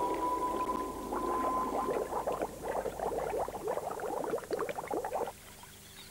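Water bubbling and gurgling in a dense run of small pops that cuts off suddenly about five seconds in. A held musical note fades out about a second in.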